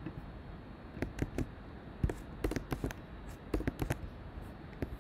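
Irregular clicking of a computer keyboard and mouse as lines of code are selected, copied and pasted.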